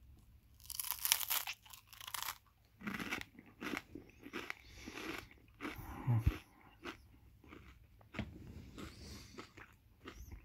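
Close-up crunching and chewing of a crunchy snack, in irregular bursts of bites and chews, loudest about a second in and again about six seconds in.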